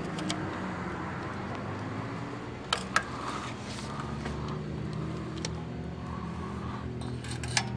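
Socket wrench working the oil pan bolts: a few sharp metallic clicks, two close together about three seconds in and another a little later, over a steady low hum.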